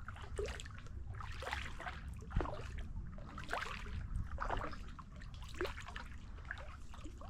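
Kayak paddle dipping into the water, with splashes and drips coming off the blades about once a second.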